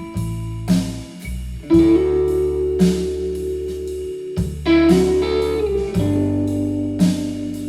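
A guitar-led blues song with bass and a steady drum beat, played back through a Grundig Minerva Mini-Box MB 5030 HiFi loudspeaker in an audio test; an instrumental passage with no singing.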